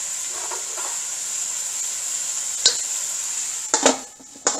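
Vegetables and marinade sizzling steadily in a hot wok, with one sharp clink of metal on the wok about two-thirds in. Near the end a domed metal lid clanks onto the wok a few times and the sizzle drops away under it.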